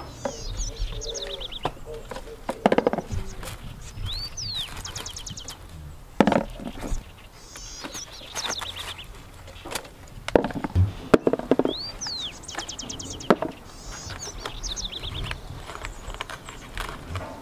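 A small songbird sings a short, high trilling phrase over and over, roughly every three to four seconds. Between the phrases come short snaps and rustles from the tomato vines being handled.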